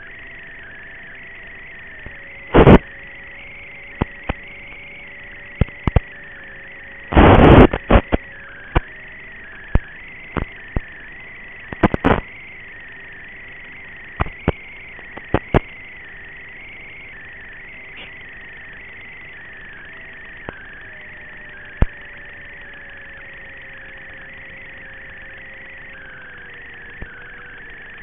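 Onboard audio from a fixed-wing FPV plane, a steady hiss with a faint motor whine that drops in pitch near the end as the throttle comes back. Sharp crackling pops break in about a dozen times, the loudest about two and a half and seven seconds in.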